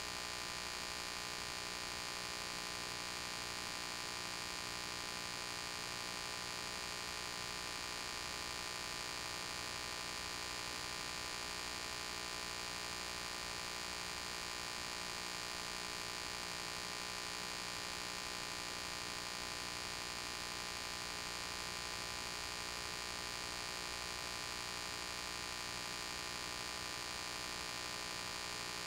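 Steady electrical hum with hiss and no other sound, the noise floor of a transfer of silent game film.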